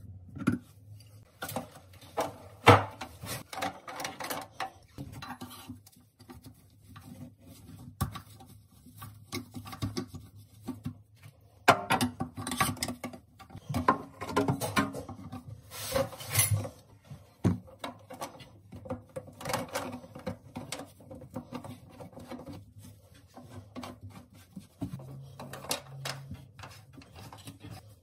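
Irregular clicks, knocks and scrapes from sink drain plumbing being fitted: a wrench on the metal drain tailpiece, and plastic P-trap pipes and slip nuts being handled and tightened. There is a busier stretch of clatter about halfway through.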